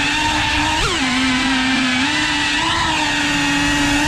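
FPV quadcopter's motors and propellers whining steadily, with a short jump up and back down in pitch about a second in as the throttle is blipped.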